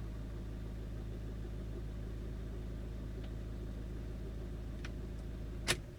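Fiat 1.3 Multijet four-cylinder diesel idling steadily with a knock, which the owner takes for the water pump, or else a valve or camshaft near the timing cover. A sharp click comes near the end, and the engine sound cuts off.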